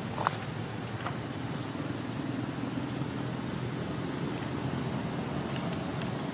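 Steady low outdoor rumble, like distant vehicle traffic, with two faint short squeaks in the first second or so.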